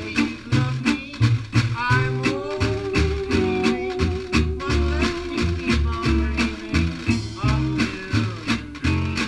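Small swing band playing: a saxophone carries the melody and holds one long note from about two seconds in, over a plucked upright bass, a washboard and cymbal keeping a steady beat, and a strummed guitar.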